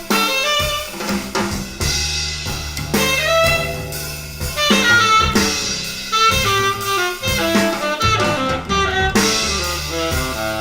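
Jazz music with saxophone and drum kit, played back over a hi-fi horn loudspeaker system.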